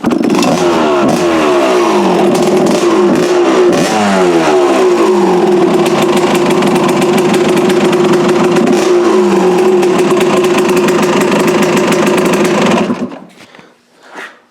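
Small kick-started engine running: it catches suddenly, is blipped several times with the revs falling back each time, then holds a steady fast idle and cuts off about 13 seconds in. The owner says it runs really good.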